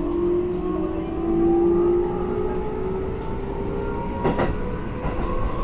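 Keikyu electric train's traction motors whining, their tones rising slowly in pitch as the train gathers speed, over a steady running rumble. Wheels knock over rail joints about four seconds in and again near the end.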